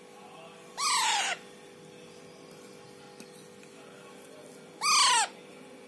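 Green pet parakeet calling twice, about four seconds apart. Each short call is a quick run of falling notes. A steady hum runs underneath.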